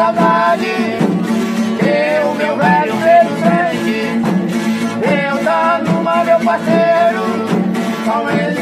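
Men singing a folia chant with pandeiros, frame drums with jingles, beaten in a steady rhythm behind the voices.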